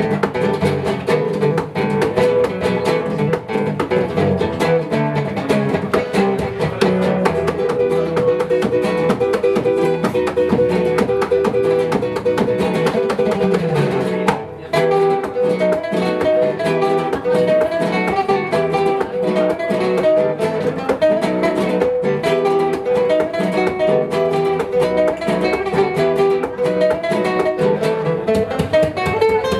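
Live acoustic guitar music, plucked and strummed, with a brief break in the playing about halfway through.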